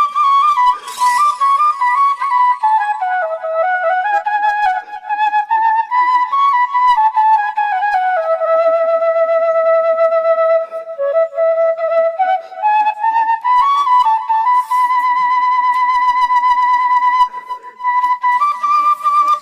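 Background music: a slow single-line melody that steps up and down, holding one low note for a few seconds midway, over faint short low accompanying notes.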